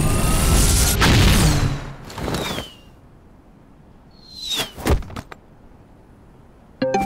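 Cartoon jetpack sound effect: a loud rushing roar with a rising whine that cuts out after about two and a half seconds. Then come falling whistles and a few sharp thuds about five seconds in as the character drops and lands, and a short pitched sound near the end.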